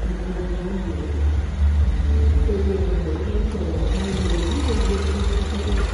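BMW 316i's 1.6-litre turbocharged four-cylinder engine idling, a steady low rumble.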